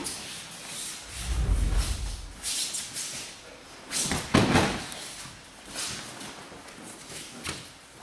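Aikido throws and breakfalls on tatami mats. There is a heavy, low thud about a second in, and a louder slap of a body landing on the mat about four seconds in. Between them come the rustle of cotton uniforms and bare feet shuffling on the mats.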